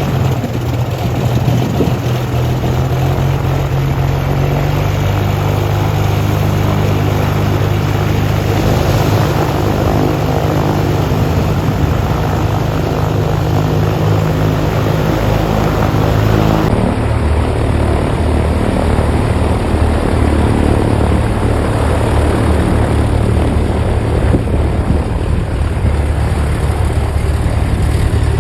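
Cessna 414's turbocharged six-cylinder piston engines running with propellers turning just after startup, a steady loud drone. The engine note steps up a few seconds in, and the sound changes abruptly a little past halfway.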